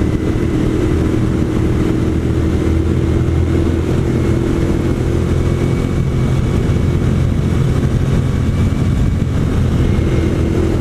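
Suzuki SV650 V-twin motorcycle engine running steadily at a constant cruising speed, with wind and road noise.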